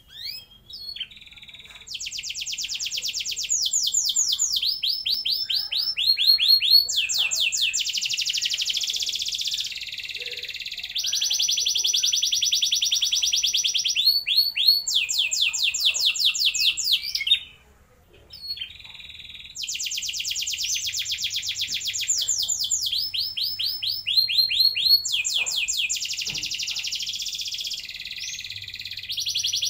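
Domestic canary singing long rolling phrases: trains of fast, evenly repeated notes, one phrase running straight into the next, with a short break a little past the middle.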